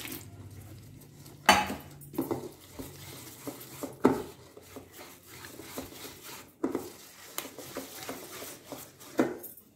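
Wire whisk scraping and clinking against a stainless steel bowl as flour, egg and water are beaten into a batter, with a few louder knocks of the whisk on the bowl.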